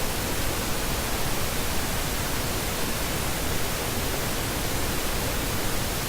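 Steady, even hiss of background noise, with no other sound on top of it.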